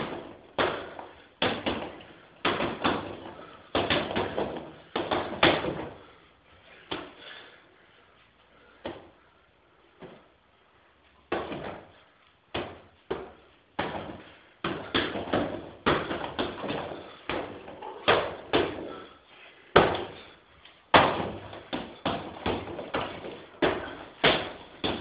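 A series of punches and kicks landing on padded training equipment, coming in quick combinations of sharp thuds with a lull of a few seconds about a third of the way through, then picking up again with the hardest hits around two-thirds of the way in.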